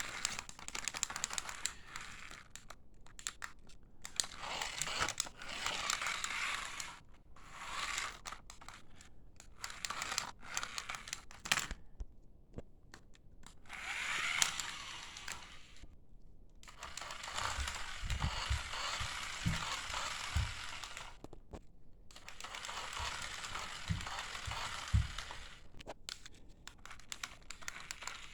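Plastic wrapping crinkling and rustling as it is handled, in spells of several seconds with short pauses and scattered clicks, and a few soft thumps in the second half.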